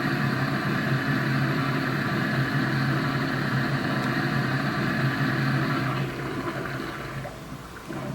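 Steam-locomotive sound effect from a KATO Sound Box, played through a speaker: a steady rushing hiss over a low hum, fading away about six to eight seconds in.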